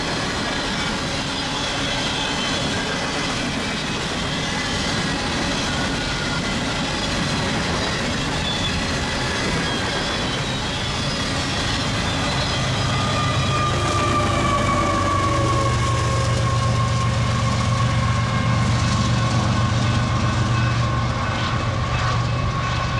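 Empty Union Pacific coal hoppers rolling by with steady wheel-on-rail noise and high wheel squeal. About halfway through, a diesel locomotive's low engine drone grows louder, with a whine that slowly falls in pitch.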